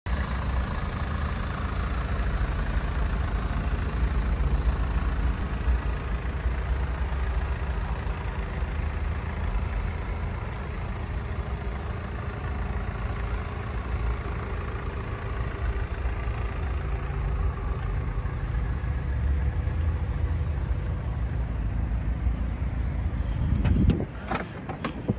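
A steady low rumble, then a few sharp clicks near the end as the BMW 320d saloon's boot lid is unlatched and opened.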